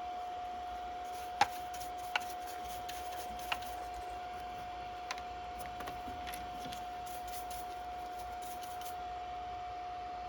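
Steady hum from a 2M2 Tank Pro CNC key cutting machine, with a few sharp metallic clicks and taps, the loudest about a second and a half in.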